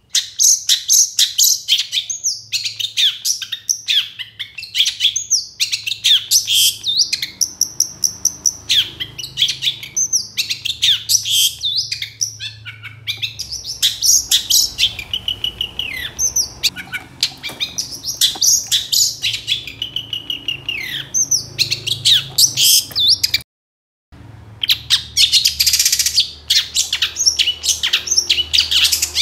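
Long-tailed shrike (cendet) singing loudly in a rapid, unbroken stream of chattering and whistled notes. The song breaks off for about half a second a little over three-quarters of the way through, then carries on.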